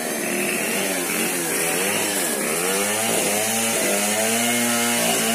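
Chainsaw engine running under load, its pitch rising and falling about once a second.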